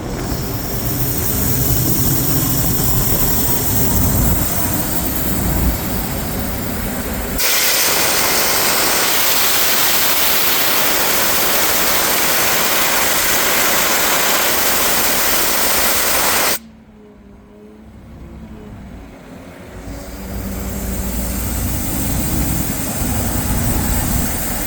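Diesel engine of a Doosan HP1600WCU portable air compressor running. About seven seconds in, a loud hiss of compressed air being released takes over for about nine seconds and cuts off suddenly. The engine then grows louder again over the last few seconds.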